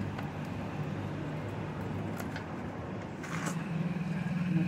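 A steady low mechanical hum, like an idling engine, with a few short rustles of soil being handled around the planter.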